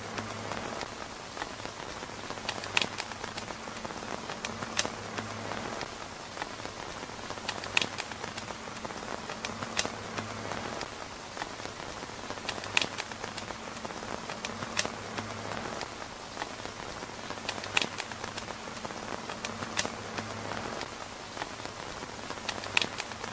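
Steady rain pattering on tent fabric, with a sharp tick or pop every two to three seconds over it and a faint low hum that comes and goes.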